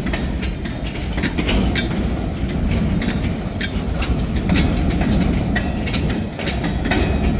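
Loaded freight train cars rolling past: a steady rumble, with irregular clicks and clanks from the wheels over the rail joints.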